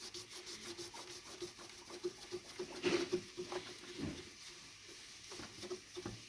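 Faint, irregular rubbing and scrubbing on a part of a radio cassette recorder as it is cleaned of grease, with a few light knocks.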